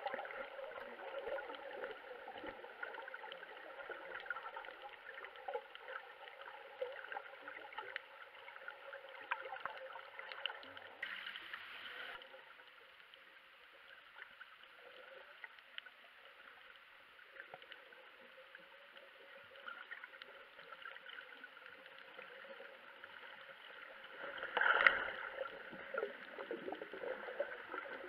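Muffled underwater sound: a steady wash of water with scattered small crackling clicks, a brief rush about eleven seconds in and a louder one near the end.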